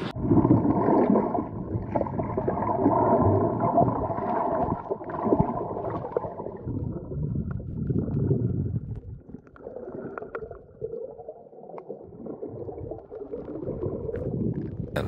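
Muffled underwater sound from a submerged camera: water gurgling and sloshing around the housing as the snorkeler swims, with scattered faint clicks. It is louder in the first half and fades about halfway through.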